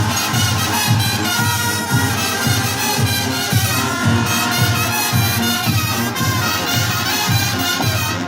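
Marching brass band playing: sustained brass melody over a steady, regular low drum beat.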